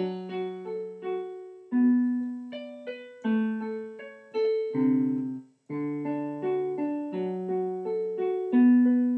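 Solo piano playing an instrumental passage of chords between sung lines, each chord struck and left to fade before the next.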